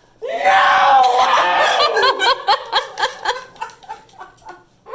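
A woman's loud yell of surprise, then excited laughing in quick bursts, about four a second, that die away near the end.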